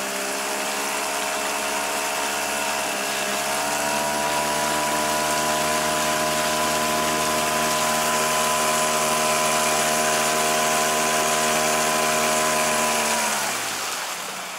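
Tohatsu 5 hp outboard motor running at high throttle under load, its pitch climbing at the start, dipping briefly about three seconds in, then holding steady, with a rush of water and spray along the hull. Near the end the throttle is cut and the engine note drops away quickly.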